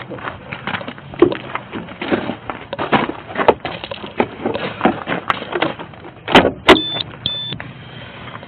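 Rummaging inside an open pickup truck cab: scattered rustling and light clicks and knocks of things being moved about, then two sharp clacks a little over six seconds in, followed by two short high electronic beeps.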